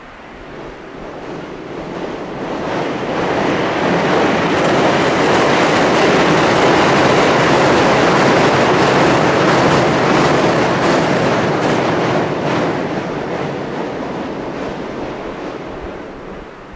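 Electric passenger train crossing a steel truss railway bridge: wheel and rail noise swells as it approaches, is loudest in the middle with clacking over the rail joints, and fades away near the end.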